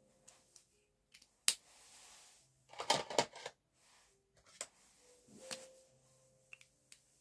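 Clicks and clatter of pens and markers being handled on a desk: one sharp click about one and a half seconds in, a quick rattle of several clicks around three seconds, then a few lighter clicks and taps.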